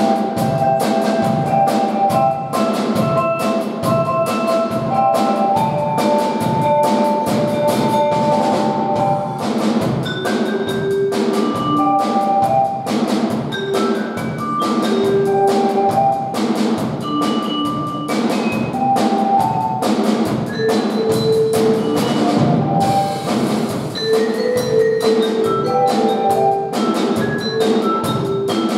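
A percussion ensemble playing: a drum kit keeps a steady, fast beat while mallet keyboard instruments play the tune in clear, ringing notes.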